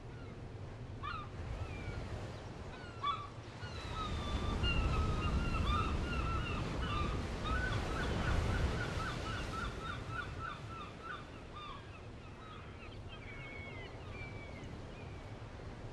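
Birds calling in a run of short chirps, coming quickly in the middle, over the rush of surf that swells and then eases.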